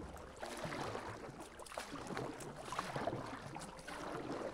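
Kayak paddle dipping into river water: irregular small splashes and drips.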